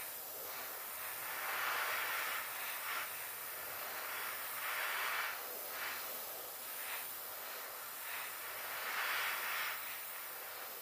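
Airbrush spraying thinned primer: a steady hiss of air and paint that swells louder several times as the spray is pulsed over the model.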